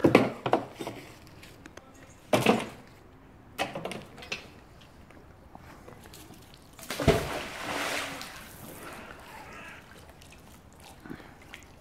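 A magnet-fishing magnet on a rope splashing into canal water about seven seconds in, a sharp hit followed by about a second of splashing that dies away. Two shorter, sharper sounds come before it.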